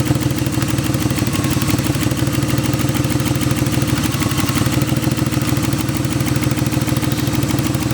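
BMW E36 engine idling steadily with an ignition misfire, running while its coil packs are unplugged one at a time to find the misfiring cylinder.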